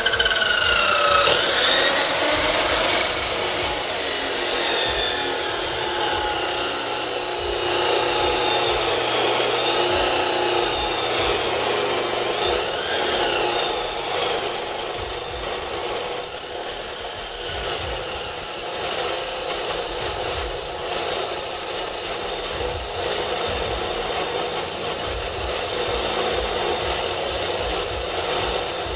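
Abrasive-wheel chop saw grinding through 1¼-inch steel round bar: a loud, continuous harsh grinding over the motor's whine. The whine drops a little in pitch in the first second or two as the wheel bites into the steel, then the cut goes on steadily.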